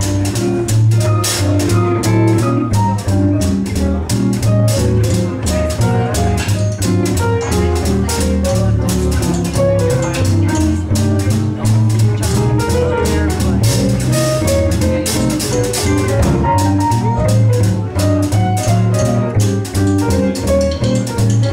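Jazz big band kicking off a swing tune together: upright bass walking low, drum kit keeping time with evenly spaced cymbal strokes, and saxophone and brass sections playing the melody.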